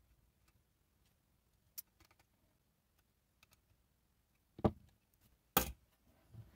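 A few faint light clicks, then two short, louder knocks about a second apart near the end.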